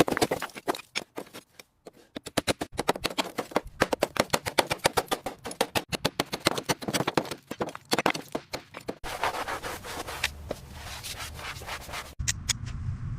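Rapid, repeated scraping strokes, several a second. Near the end they give way to a low rumbling noise.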